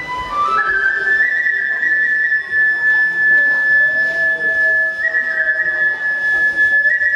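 Kagura flute (a Japanese bamboo transverse flute) playing a high melody: a quick run of rising notes, then a long held note that steps down near the end.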